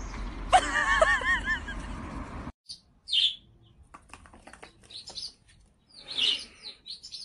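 Small birds chirping. First comes a quick run of repeated arching calls over a steady outdoor rumble, which cuts off about two and a half seconds in. After that come scattered short, high chirps and peeps, with a few faint taps.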